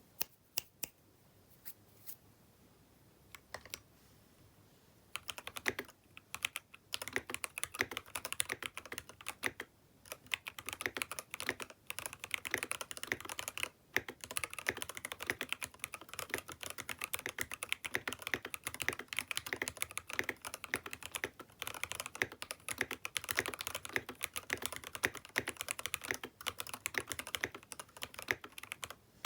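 Keychron K6 Pro mechanical keyboard with linear Keychron K Pro Red switches: a few single keystrokes, then fast continuous typing from about five seconds in, with short pauses.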